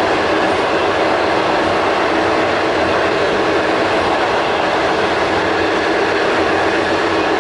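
Steady running noise inside a moving passenger train carriage: wheels on rails and the car body rumbling evenly, with a steady hum underneath.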